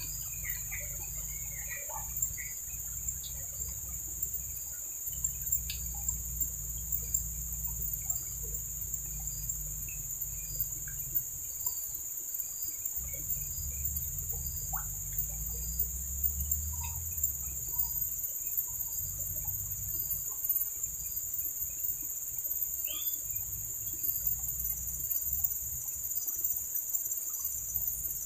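A steady, high-pitched insect chorus drones without a break, with a faint chirp repeating about once a second. A low rumble comes and goes underneath.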